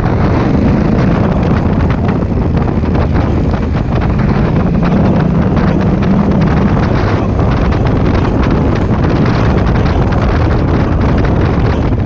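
Heavy wind buffeting on the microphone of a moving motorcycle, with the Honda Africa Twin CRF1000L's parallel-twin engine running underneath as the bike picks up speed.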